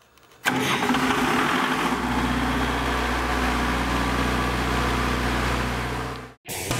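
Diesel generator engine running steadily at a constant speed. It starts abruptly about half a second in and cuts off suddenly near the end.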